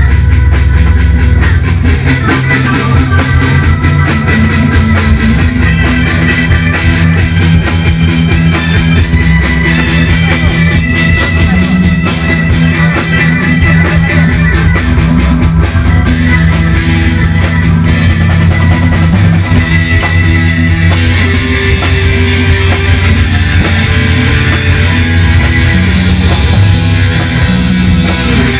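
Live rock band playing: drum kit, electric guitar, bass guitar and keyboard together at full volume.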